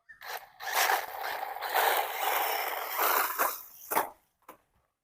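Brushless 4WD RC off-road car driving over gravel: tyres crunching and throwing stones, with a faint motor whine, for about three seconds before it stops.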